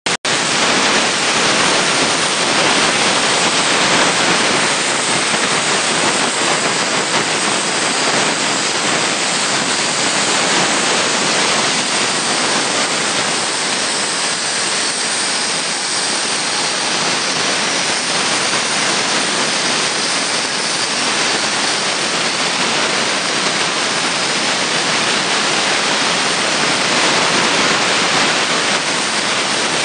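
CNC plasma cutter torch cutting sheet metal: a loud, steady rushing hiss from the arc and its air jet, running without a break.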